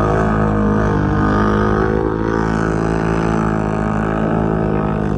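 Off-road vehicle engine running at a steady speed, its pitch holding fairly even.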